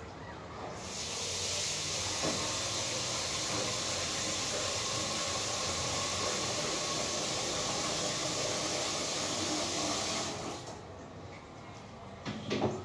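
Steady rushing hiss of running water, starting about a second in and cutting off about ten seconds in. A short sharp sound follows near the end.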